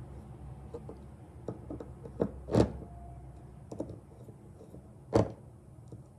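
Screwdriver driving the small metering-cover screws into a Tillotson chainsaw carburetor: light metal clicks and scrapes, with two louder knocks about two and a half and five seconds in, over a steady low hum.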